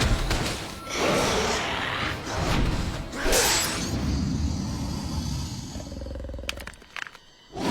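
Cartoon fight sound effects: monster growls and roars from the Wendigo creatures in a rush of noisy bursts over a low rumble and score, the loudest roar about three seconds in. It falls briefly quiet just before the end.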